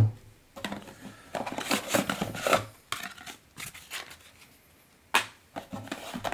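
Cardboard packaging being handled: a thump as the Echo Spot smart speaker is set down on a wooden table, then scraping and rustling as the cardboard insert is lifted out of the box, with a sharp click about five seconds in.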